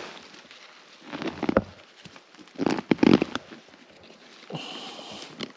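Footsteps crunching over dry leaves, twigs and brush on a forest floor, in a few uneven clusters of steps.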